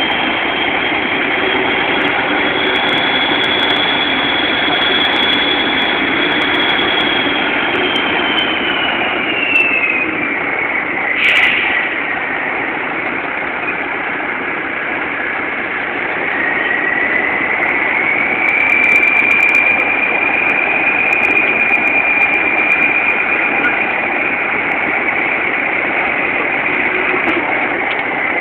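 Engine of a large Kirovets K-700-type four-wheel-drive tractor running steadily as it pushes silage, with a high whine that slides down in pitch about ten seconds in and climbs again from around seventeen seconds. There is a single short click about eleven seconds in.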